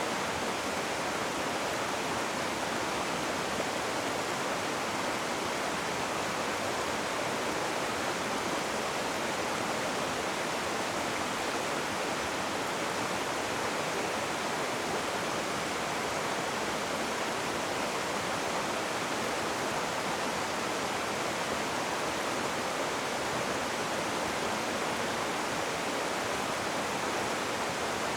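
Rushing river water: a steady, unbroken hiss-like rush with no separate splashes, mostly in the middle and upper range with little low rumble.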